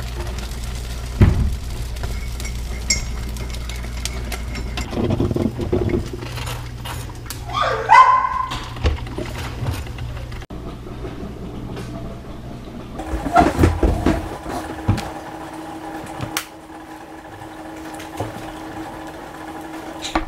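Kitchen clatter of cooking and eating: a spatula working in a frying pan, and knives, plates and a glass knocking and clinking, scattered clicks over a steady low hum that stops about ten seconds in. A brief sliding tone, the loudest sound, comes about eight seconds in.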